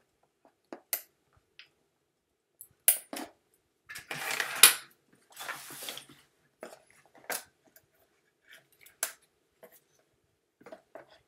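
Headphone packaging being handled and worked apart by hand: scattered clicks and knocks, with two longer stretches of rustling about four to six seconds in.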